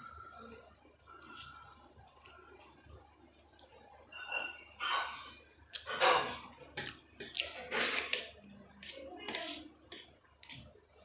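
Close-miked eating of spicy Maggi instant noodles: wet slurps and chewing with sharp mouth clicks. It is faint for the first few seconds and loud and busy from about four seconds in.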